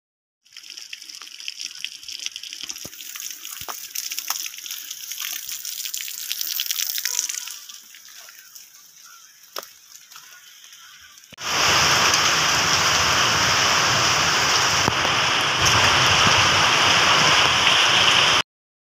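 Hail and rain falling. First comes a pattering hiss with many sharp clicks of hailstones striking, which fades somewhat after about seven seconds. From about eleven seconds a loud, steady downpour takes over and then cuts off suddenly.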